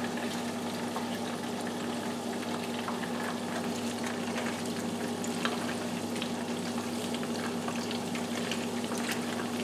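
Battered chicken wings deep-frying in a stainless steel stockpot of hot oil: a steady bubbling sizzle dotted with many small crackles, as wooden chopsticks stir the pieces.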